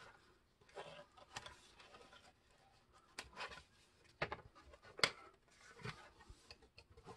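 Faint rustles and light taps of paper and cardboard as the cover and pages of a ring-bound planner binder are handled and turned, about half a dozen short sounds spread out with quiet between.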